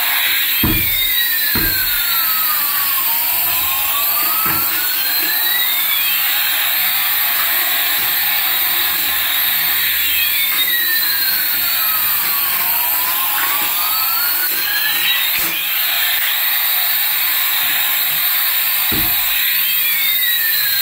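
Battery-powered toys running: a steady, high whirring hiss from small electric motors, with a toy sound-effect tone that sweeps down and up at once, recurring about every ten seconds. A few soft low knocks are heard now and then.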